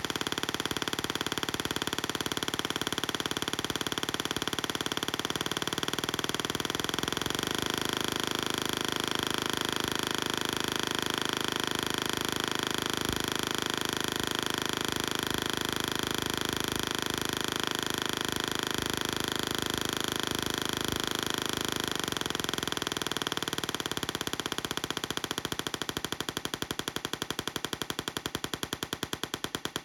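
Tesla coil discharging: a loud, rapid buzzing crackle of electric sparks, the pulses coming too fast to count. Near the end the crackle breaks into more distinct separate pulses.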